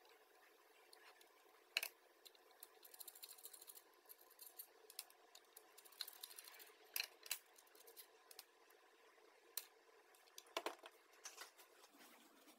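Scattered small clicks, taps and rattles of small parts being handled, over faint room tone, with a run of quick crackling ticks about three seconds in.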